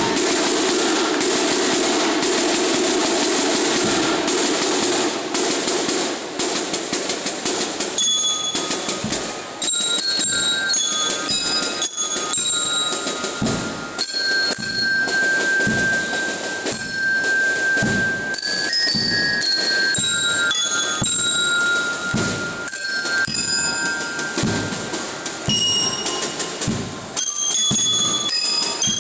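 Sea Cadet marching band of snare drums, bass drum and bell lyres playing. A dense, loud passage of drumming gives way about eight seconds in to a ringing bell-lyre melody over regular snare and bass drum beats.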